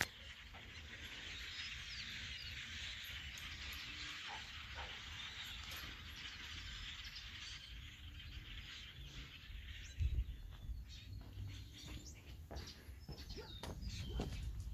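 Faint chirping of a flock of birds, a steady chatter of many small calls. From about ten seconds in it thins out and low thumps and rumbles take over.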